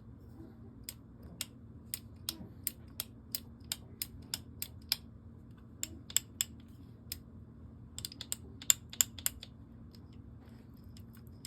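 Sharp metallic clicks of an Anvil forced-reset trigger's parts being worked by hand during a function check in an AR-15 lower receiver, in three runs of about three clicks a second.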